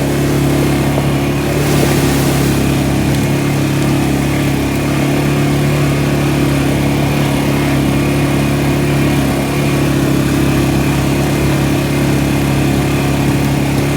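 ATV (four-wheeler) engine running at a steady speed, its pitch holding even throughout, with a brief rush of noise about two seconds in.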